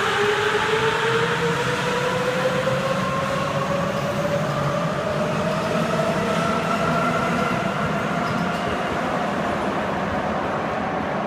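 Sapporo Subway 8000 series rubber-tyred train accelerating away from the platform. Its drive motors give several whines that slowly rise in pitch over a steady running noise, which eases a little as the train pulls away.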